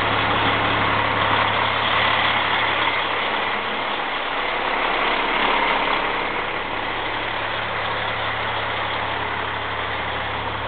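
Semi truck's diesel engine idling steadily with a constant low hum.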